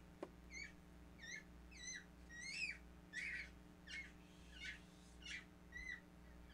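A small bird chirping over and over: short, high chirps, about one every two-thirds of a second.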